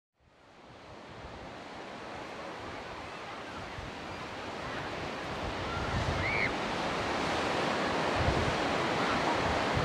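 Sea waves washing onto the shore with wind buffeting the microphone, fading in from silence at the start and growing steadily louder. A few faint short chirps sound over it in the second half.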